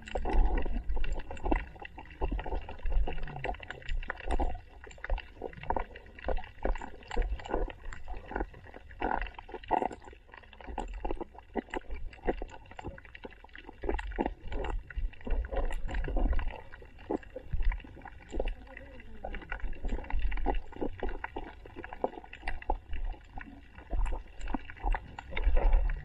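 Muffled underwater sound picked up by a submerged action camera: uneven low thumps and gurgling water with many scattered clicks and crackles.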